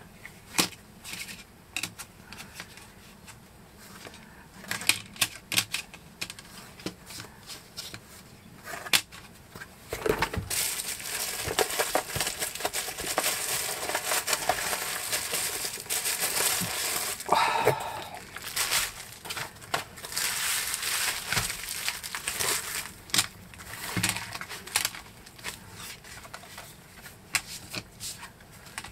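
Plastic bubble-wrap packaging crinkling and rustling as it is pulled from a cardboard box and unwrapped. It is dense and continuous for about thirteen seconds in the middle. Before and after it come scattered light clicks and taps of plastic blister packs being handled.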